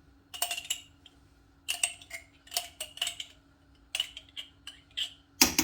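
A spoon scraping and clinking inside a nearly empty mustard jar, irregular clicks and scrapes. Near the end a fast, even tapping starts, about five strokes a second, as the spoon stirs the sauce in the pot.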